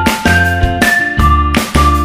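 Background music with a steady beat, about two beats a second, and a simple melody over sustained bass notes.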